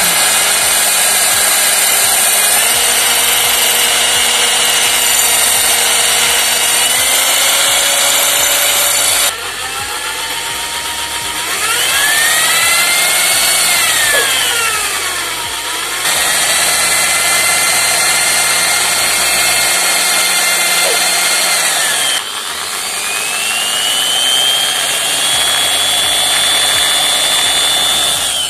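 Electric hand drill boring out the rivets that hold the bush (bearing) plate on a mixer grinder motor housing, the bit grinding into metal. The motor whine rises and falls in pitch as the speed changes, with abrupt breaks a few times, and stops at the end.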